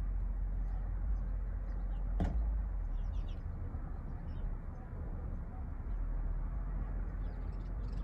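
Steady low rumble, with faint high chirps of small birds a few times and a single sharp click about two seconds in.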